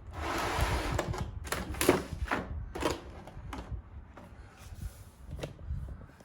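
Packaging being handled: a rustling, sliding scrape for about the first second, then scattered clicks and knocks of cardboard and plastic that grow sparser toward the end.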